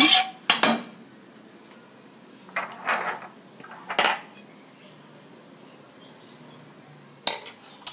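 Metal cooking utensils clinking and scraping against a wok and a plate: a couple of sharp clinks just after the start, brief scrapes a few seconds in, one clink about four seconds in and two more near the end.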